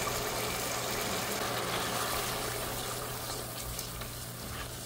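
Spice masala with sour yogurt sizzling in hot oil in a cooking pot while it is cooked down (koshano); a steady hiss that eases slightly toward the end.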